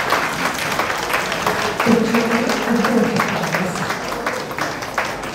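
Audience applauding with fast, dense clapping. A voice calls out over it about two seconds in, for roughly a second.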